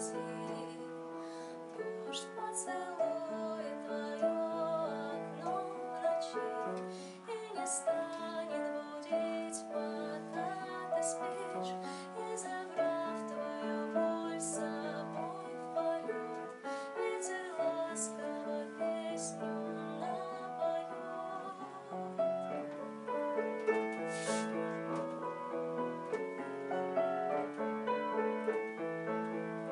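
Grand piano playing a solo passage in a slow lullaby for soprano and piano: steady, gently changing chords and melody notes with no voice above them.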